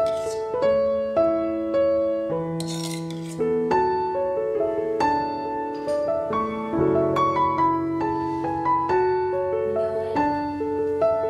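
Background piano music: a simple melody of notes changing about every half second over a lower accompaniment.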